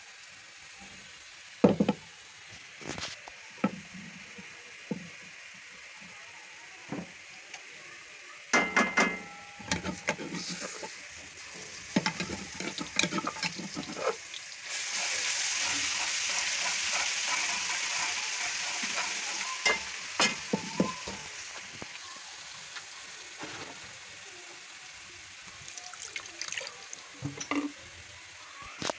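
Sliced onions frying in hot oil in a metal pan, with a steel ladle knocking, clinking and scraping against the pan as they are stirred. About fifteen seconds in, ginger-garlic paste goes into the oil and a loud, even sizzle starts suddenly, then slowly dies down over the next several seconds.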